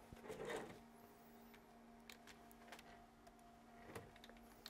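Near silence: a faint steady hum with a few light taps of a stylus on a tablet screen.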